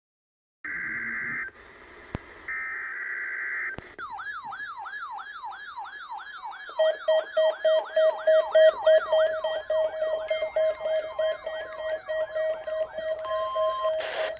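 Two bursts of NOAA Weather Radio SAME header data, a harsh buzzing digital tone, then an electronic weather-radio alert alarm: a siren-like tone that sweeps down over and over, about two and a half times a second, with a steady beeping tone added partway through.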